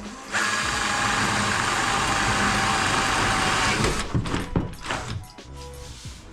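Electric drill boring a hole through a wardrobe shelf for the LED cable, running steadily for about three and a half seconds and then stopping, followed by a few short knocks.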